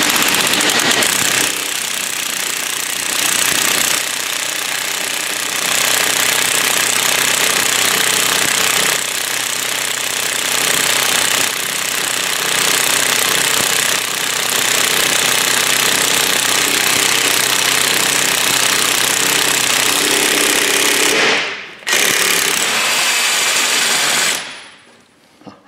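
Harbor Freight cordless impact wrench hammering continuously on the forcing screw of a bearing press, pulling a new front wheel bearing into the steering knuckle. It stops for a moment about 21 seconds in, runs again briefly, then stops near the end.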